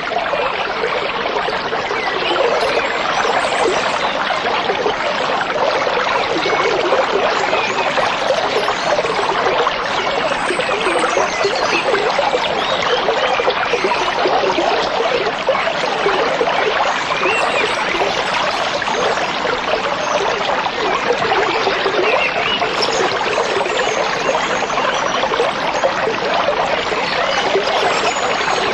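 A stream of water babbling and trickling steadily over stones, an even, bubbly rush with no pauses.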